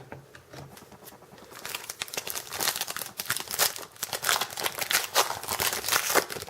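Plastic foil wrapper of a trading-card pack being torn open and crinkled by hand, a dense run of sharp crackles that starts about a second and a half in and goes on almost to the end.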